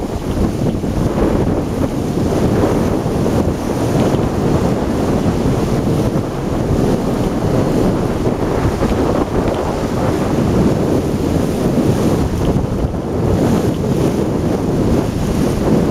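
Wind buffeting the camera microphone: a loud, uneven rush of noise that rises and falls without a break.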